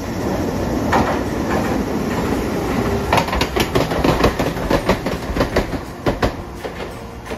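Hiroden articulated tram passing close by, its wheels rumbling louder as it comes in. From about three seconds in, a quick run of sharp clacks, three or four a second, as the wheels cross the track joints.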